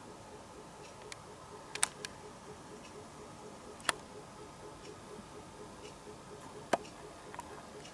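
Quick, even, faint ticking, with a few sharp clicks about two, four and seven seconds in.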